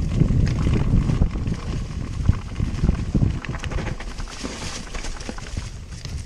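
Downhill mountain bike rattling over a rough trail: tyres on dirt and stones, with irregular knocks and clatter from the bike and a steady low rumble. The clatter is busiest for the first few seconds and eases off after about three and a half seconds.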